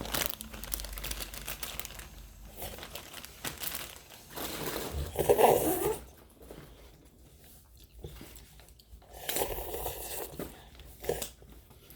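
Crinkling and rustling of something being handled, in irregular bursts. The loudest burst comes about five seconds in, followed by a quieter spell and more rustling near the end.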